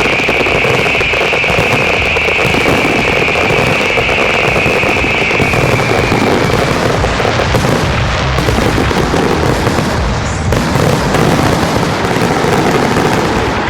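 Large display fireworks going off in a dense barrage: rapid overlapping bangs and crackling, with a high whistle over them that fades out about halfway through.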